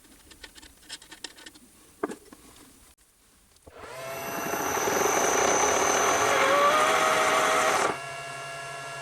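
Light clicks, then a lathe starts up about four seconds in and runs loud under a cut, with a whine in it, on the spindle shaft being relieved for threading. About a second before the end it eases back to a steady running hum.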